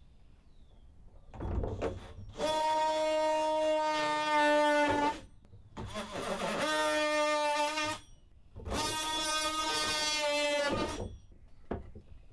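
DeWalt cordless oscillating multi-tool plunge-cutting plywood: a steady buzzing whine that comes in three bursts of a few seconds each, stopping briefly between cuts.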